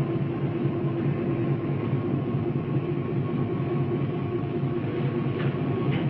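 Underground Métro train at the platform: a steady rumble and hum from the train, with a couple of short clicks near the end.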